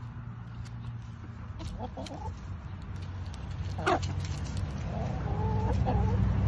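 Backyard hens clucking in short wavering calls, with one sharper squawk about four seconds in. Underneath, a low rumble grows steadily louder.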